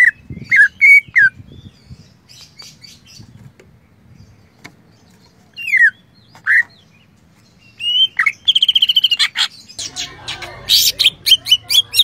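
A caged cucak ijo (green leafbird) singing. Loud falling whistles open the song, then softer chirps and two more falling whistles follow. A fast trill comes past the middle, and near the end a rapid run of sharp, high notes.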